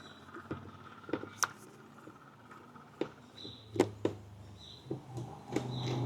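Scattered clicks and knocks of plastic and metal parts being handled as a motorcycle's air filter case is taken apart, with a few short high squeaks in between.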